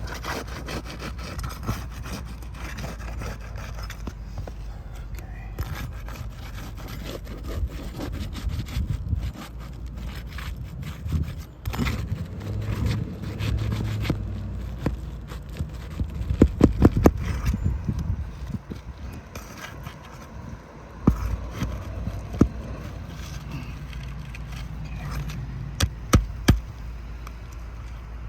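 Metal shingle-removal tool scraping and prying under brittle roof shingles, with a quick run of sharp knocks about two-thirds of the way through and a few single sharp taps near the end.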